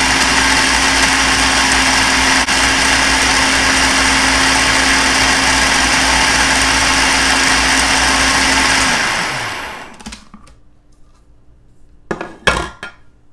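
Small electric food processor running steadily, pureeing thick hummus, then switched off about nine seconds in and spinning down. Near the end come a couple of sharp plastic clicks as the lid is lifted off the bowl.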